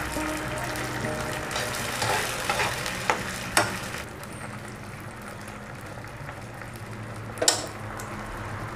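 Baked beans sizzling in hot oil in a frying pan while a slotted spatula stirs and scrapes them, with short knocks and scrapes of the spatula on the pan. The sizzling eases after about four seconds, and there is one sharper knock near the end.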